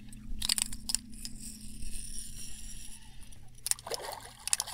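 Fishing reel being cranked to bring in a hooked fish: a run of sharp metallic clicks and a high whir that stops shortly before the end, over a steady low hum.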